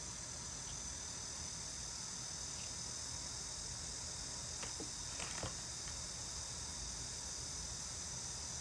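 Steady high-pitched chirring hiss in the background, with a few faint light clicks about five seconds in.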